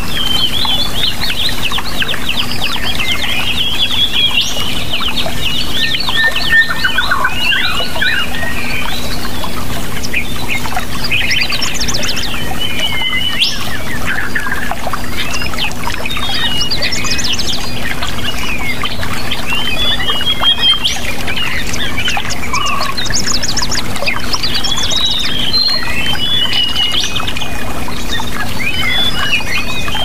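Several small songbirds chirping and trilling rapidly, their calls overlapping without pause, over a steady rush of waterfall noise and a faint low hum. It is a birdsong therapy track played to coax caged songbirds that have gone quiet into singing again.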